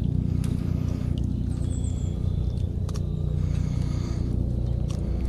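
A boat motor running steadily, a low even hum, with a few light clicks on top.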